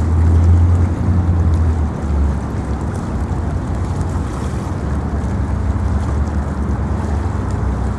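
Wind buffeting the microphone: a steady low rumble that swells and eases, over a wash of open-air noise.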